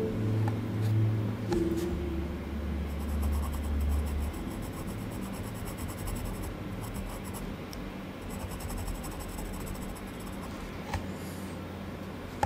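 Graphite pencil scratching across drawing paper in sketching strokes. A low background-music note dies away about four seconds in.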